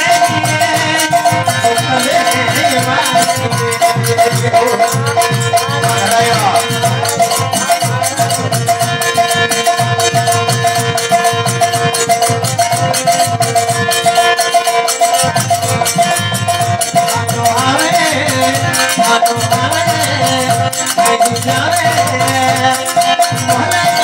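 Thari devotional bhajan music: a harmonium holding sustained notes over a steady hand-drum beat, with a rattling percussion keeping time and a man's voice singing in places.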